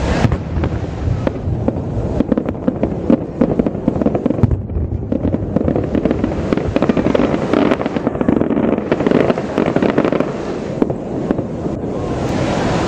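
Fireworks display: a dense, continuous run of crackles and pops from many shells bursting, over a low rumble, with a loud bang right at the start.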